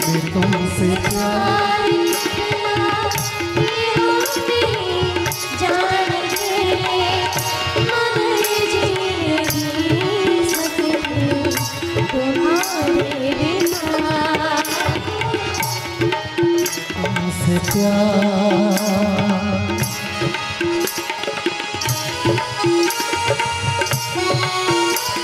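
Instrumental interlude of a devotional kirtan-style song: tabla keeping a steady beat under a melody instrument, with no singing.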